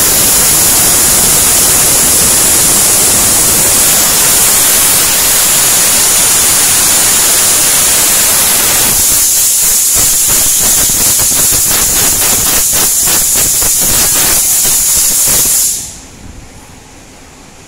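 Compressed air hissing loudly from an air hose worked inside the steel rim of a giant off-road tyre. The hiss turns choppy after about nine seconds and cuts off abruptly about sixteen seconds in.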